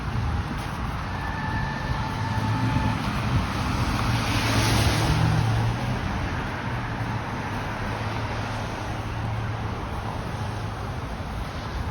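City road traffic: a steady low hum of vehicles, with one passing close and swelling louder about four to five seconds in.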